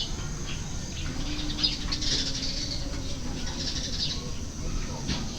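Birds chirping in the background, a few short chirps at a time.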